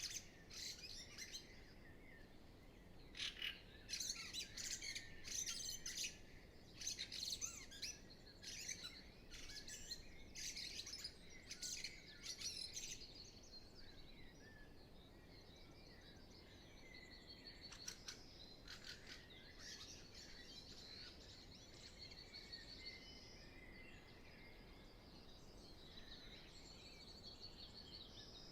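Dawn chorus of many songbirds singing in spring, with no wind. Busy overlapping song fills the first dozen seconds or so, then it thins to quieter high trills with a few louder phrases.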